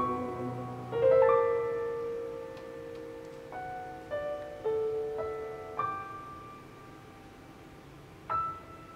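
Choral piano accompaniment on a stage keyboard: the choir's held chord ends about a second in as a chord is struck, then slow single notes follow one at a time, each ringing and fading, with a last high note near the end.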